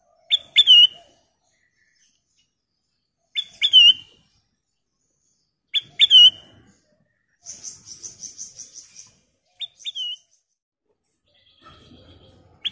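Ruby-throated bulbul (kutilang emas) calling: three short, loud, sweeping calls about two and a half seconds apart, then a quieter, rapid run of high notes and one more short call near the end.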